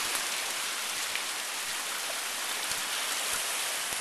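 Heavy rain pouring down outside, a steady even hiss that is really coming down.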